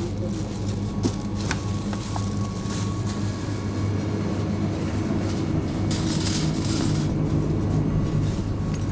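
Steady low rumble and hum of a supermarket's background noise, with a few light clicks and rattles.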